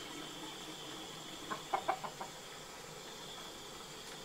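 Chicken clucking: three or four short clucks close together about a second and a half in, over a faint steady high hum.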